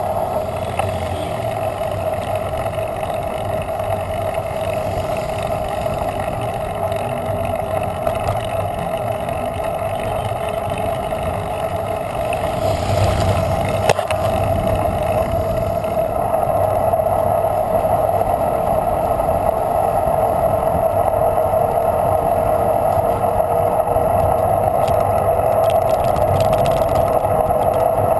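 Steady drone of wind and tyre noise from a bicycle rolling along an asphalt road, with a motorcycle passing close by about halfway through.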